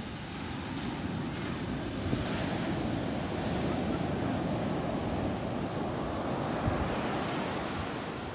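Ocean surf breaking and washing up the beach, a steady rushing wash that swells a little a couple of seconds in, with wind buffeting the phone's microphone.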